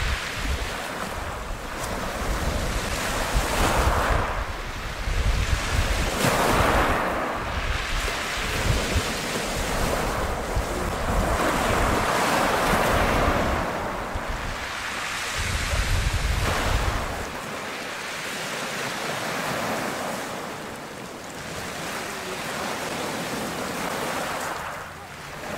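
Choppy sea waves washing and breaking, surging every couple of seconds, with strong wind buffeting the microphone; the low wind rumble drops away about two-thirds of the way through.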